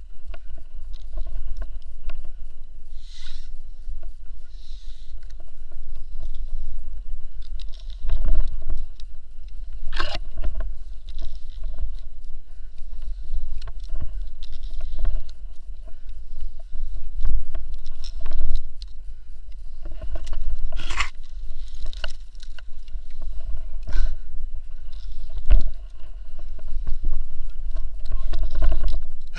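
Rope-climbing gear being worked close up: a rope ascender, pulley and carabiners clicking and knocking against each other and the climbing rope as the climber moves up, with several sharp knocks spread through. A steady low rumble runs underneath.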